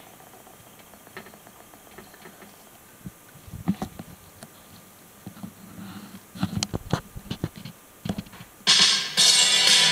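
Quiet room tone with scattered soft knocks and scrapes, then near the end music from a VHS tape starts suddenly and loudly through a TV speaker.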